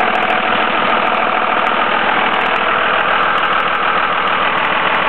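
The 5.9-litre Cummins 24-valve ISB inline-six turbo diesel of a 2002 Dodge Ram 3500, idling steadily.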